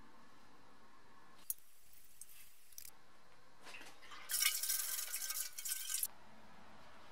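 Liquid pouring and splashing into a metal bowl for about two seconds near the end, stopping suddenly. A single sharp click comes earlier.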